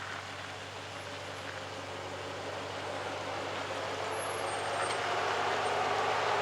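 4x4 off-road truck engine running under load, getting steadily louder, with a steady low engine hum under a rising noisy rush.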